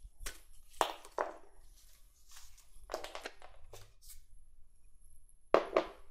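Paper cut-outs being handled and picked up off card drawings: several short rustles and taps of paper, the loudest a close pair near the end.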